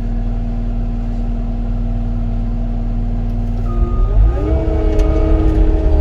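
Cat 259D compact track loader's diesel engine running steadily at low revs, then throttling up a little under four seconds in and holding at higher revs, with a thin whine coming in as it revs.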